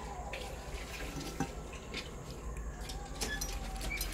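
A few light knocks and scrapes on a metal pot lid as a lump of smouldering embers is set on top, putting the pulao on dum: heat from above to finish steaming the rice.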